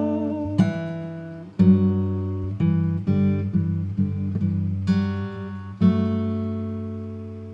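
Acoustic guitar playing the closing chords of a song: several strummed chords, then a last chord a little before the end, left ringing and slowly fading.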